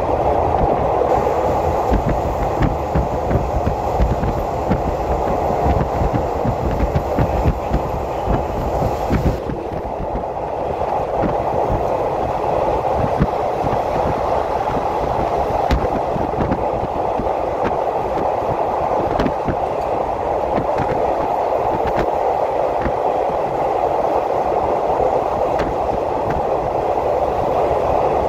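Passenger train running at speed, heard from inside the carriage: a steady rumble of wheels on rail with scattered faint clicks. A thin high hiss drops out about nine and a half seconds in.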